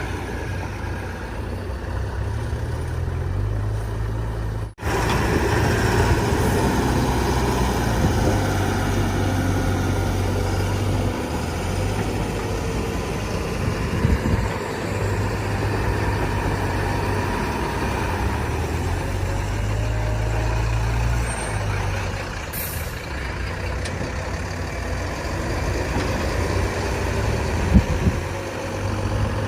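Diesel engine of a backhoe loader working, rising and falling in level as the load changes, with a couple of short metallic knocks, one about halfway through and a sharper one near the end.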